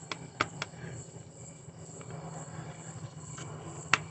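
Sharp clicks of small metal parts being handled while an electrical contactor is taken apart: three in the first second and a louder one near the end, over a steady low hum.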